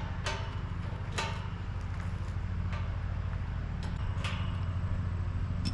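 A steady low engine-like hum with several short sharp clicks over it, spaced a second or more apart.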